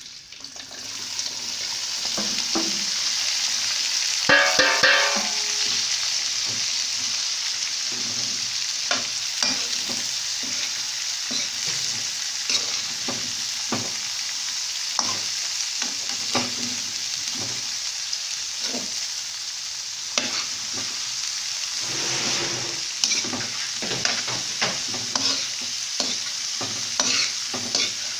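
Chopped cauliflower dropped into hot oil and a garlic-and-ginger tadka in a metal karahi. It sizzles steadily while a spatula stirs it, with frequent scraping clicks against the pan. About four seconds in there is a louder clattering scrape.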